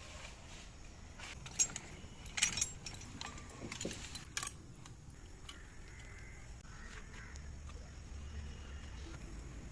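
Quiet outdoor ambience with a few light clinks and rustles in the first half, then faint bird calls.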